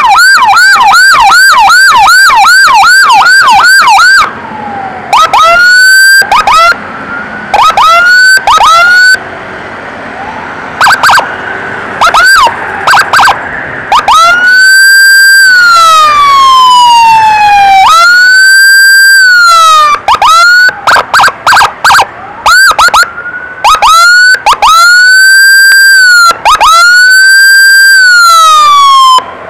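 Very loud electronic emergency siren of an ambulance convoy. It runs a fast rising-and-falling yelp for about the first four seconds, then switches to short chirping whoops and long tones that rise quickly, hold and slowly fall, with brief gaps between.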